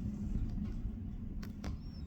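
Helicopter hovering at a distance: a steady low rumble of rotor and engine, with two sharp clicks about one and a half seconds in.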